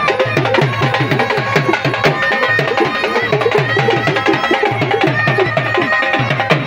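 Live folk music: a dhol drum beaten in a quick, steady rhythm under a wind instrument playing a melody of held notes.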